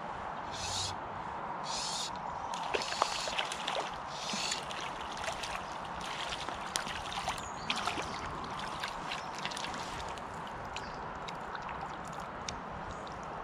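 Water splashing and sloshing as a hooked brown trout is played at the surface and drawn into a landing net, with a run of short splashes in the first few seconds and then many small drips and ticks, over the steady flow of the river.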